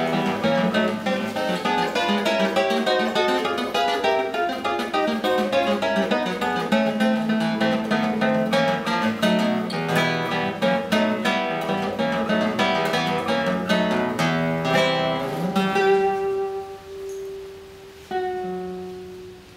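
Solo classical guitar playing a fast Romanian folk dance in rapid plucked notes. About three quarters of the way through, the rush of notes stops, and a few held notes and a chord are left to ring out and fade.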